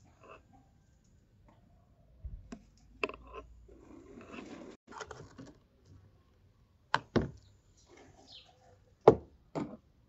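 Handling noises: a series of sharp knocks and clicks, a couple about two to three seconds in, a pair about seven seconds in and another pair near the end, the last pair the loudest, with a soft rustle between them.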